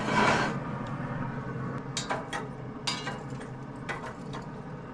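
Pit Boss pellet grill hardware and cookware being handled: a short scraping rush at the start, then a scattering of sharp metallic clinks and knocks over a steady low hum, as the grill's searing plate is opened.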